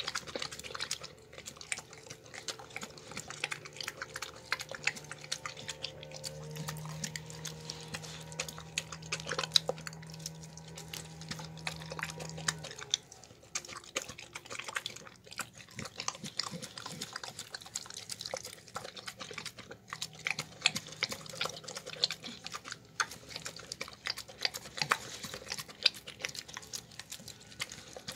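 A dog eating soft wet food of chicken, pasta and beans from a plastic tub: wet chewing and slurping, with quick, irregular clicks of teeth and tongue against the plastic.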